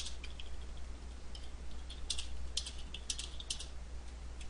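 Computer keyboard typing: irregular key clicks in short runs as a few words are typed, over a low steady hum.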